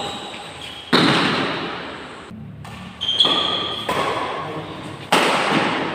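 Badminton rackets striking the shuttlecock in a doubles rally, three sharp hits about two seconds apart, each echoing in a large hall.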